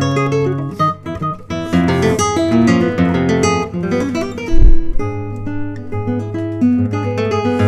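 Solo classical guitar, fingerpicked: quick runs of plucked notes over held bass notes. About halfway through comes one short, deep thump, the loudest moment.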